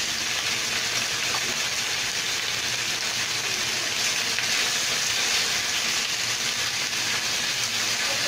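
Beef ribs and green beans sizzling steadily in an oiled frying pan as they are stir-fried.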